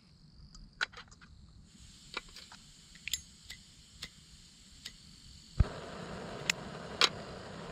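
Backpacking canister gas stove being lit: a faint gas hiss from the opened valve and a string of sharp igniter clicks, then the burner catches suddenly about five and a half seconds in and keeps burning with a steady rushing noise.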